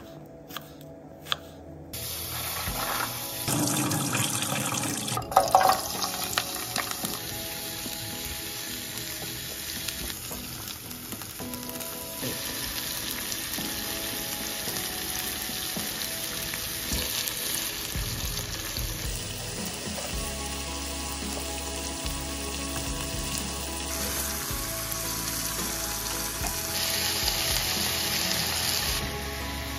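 A knife slicing through an onion onto a wooden cutting board with a few sharp clicks, then vegetables and salt fish sizzling steadily as they stir-fry in a hot pan. A few loud knocks come about five seconds in.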